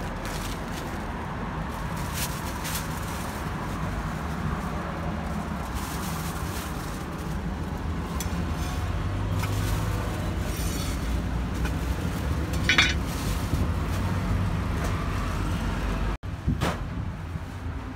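Steady rumble of street traffic with a few scattered clinks and knocks from the food stall, the loudest about two-thirds of the way through.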